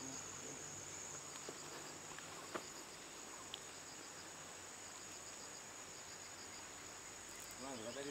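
Steady high-pitched drone of insects, with a few faint ticks now and then.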